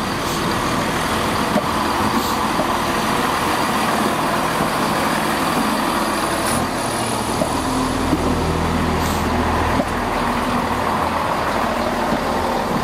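Two-car Class 170 Turbostar diesel multiple unit passing close by, its underfloor diesel engines running and its wheels rolling on the rails, with a few sharp clicks. The low engine sound swells for a couple of seconds about two thirds of the way through.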